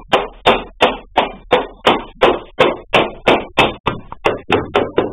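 Rapid, even knocking by hand, about three strikes a second, driving a part of a sliding wardrobe door into place on its wooden panel frame; the strikes come a little quicker near the end.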